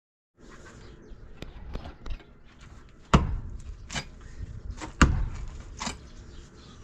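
Repeated heavy thuds of blows striking, about one a second from about three seconds in, alternating louder and softer, with lighter knocks before them.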